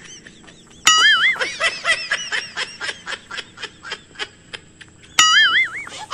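A cartoon-style laughing sound effect, played twice, once about a second in and again near the end. Each time it opens with a wavering high tone and then breaks into a quick run of short giggling notes that fade away.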